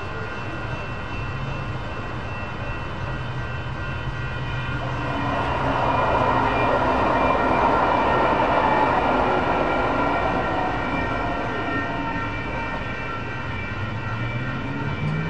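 Railroad crossing warning bell ringing steadily as a two-car light-rail train rolls through the crossing. The train's rumble swells to its loudest about halfway through, then fades near the end.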